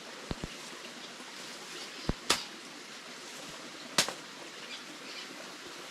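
Steady background hiss broken by a few sharp clicks and two louder, brief crackles about two and four seconds in.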